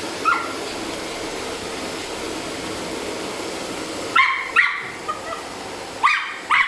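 Schipperke puppy barking sharply at a running vacuum cleaner: one short yelp near the start, then two quick pairs of barks about four and six seconds in, over the vacuum's steady whooshing hum.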